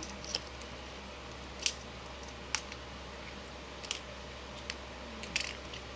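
A handful of light, sharp metal clicks, spaced a second or so apart: small metal hand tools being picked up and set down while working on a disassembled padlock core.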